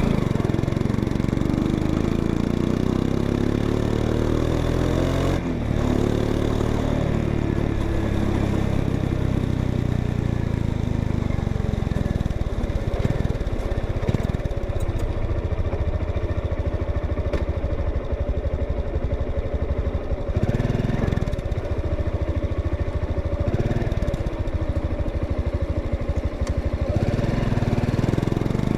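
Honda XRE 190's single-cylinder engine running, heard through its exhaust. The engine note falls over the first few seconds, then holds fairly steady, with a few brief rises in revs later on.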